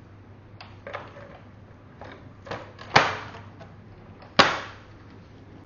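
Metal LED display cabinets being fitted and locked together during screwless assembly: a few light clicks, then two loud sharp clacks about three and four and a half seconds in, each ringing briefly.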